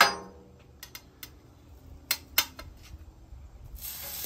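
Metal spatula clicking and tapping on a steel flat-top griddle: one sharp strike at the start, then several lighter clicks. Near the end a sizzle starts and grows as raw ground beef goes onto the hot oiled griddle.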